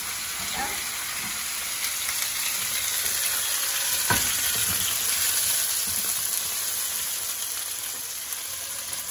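Two ribeye steaks sizzling in a hot oiled frying pan, searing on high heat, with one sharp knock about four seconds in.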